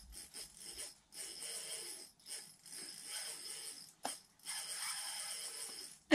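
Fishing reel whirring in short bursts of about a second each with brief gaps, ending in one sharp knock.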